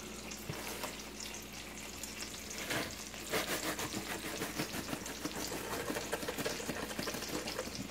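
Chicken breasts frying in olive oil and butter: a steady sizzle with fine crackles. From about three seconds in, kosher salt poured from its cardboard box into a small dish adds a denser, grainier crackle.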